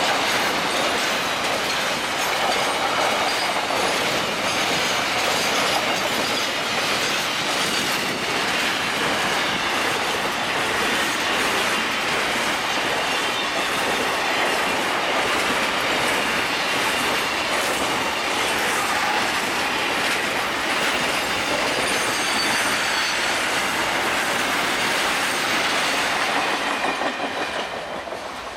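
Freight train container wagons rolling past close by on a sharp curve: steady clickety-clack of wheels over the rail joints with some high wheel squeal, then fading near the end as the last wagon and brake van go by.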